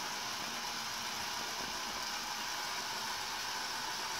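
Battery-powered Tomy toy train motor running on plastic track: a steady whir.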